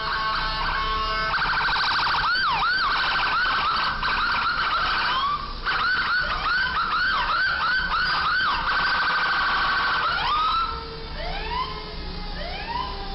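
Electronic siren cycling through patterns: a fast pulsing warble, then quick rising-and-falling whoops about three a second, broken by a short gap. The warble returns, and near the end the siren drops to slower, quieter upward swoops.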